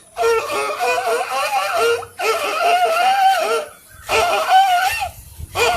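A man's voice mimicking a screechy, out-of-tune violin: long wavering pitched phrases with short breaks between them, imitating a rusty violin played badly.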